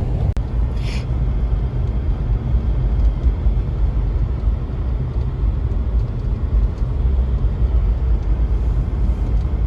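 Car driving along, a steady low road and engine rumble, with a short hiss about a second in.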